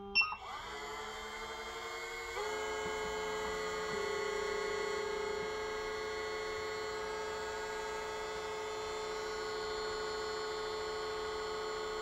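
SEC-E9 computerized key cutting machine running while it mills a car key blade. After a short sharp sound right at the start, its motor whine rises to speed within the first second and then holds steady, growing a little louder about two seconds in.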